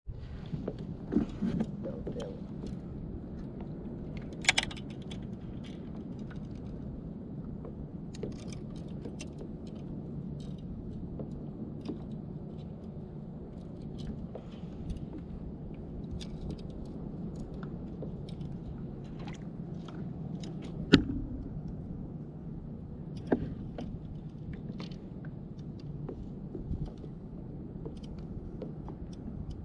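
Steady low rumble of wind and water around a fishing kayak, with scattered clicks and knocks of gear on the boat; the sharpest knock comes about 21 seconds in.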